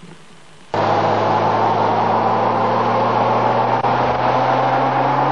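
Ford Granada's engine held at high revs as its wheels spin on gravel: a steady low hum that slowly climbs in pitch over a loud rush of noise. It starts abruptly about a second in, after faint hiss.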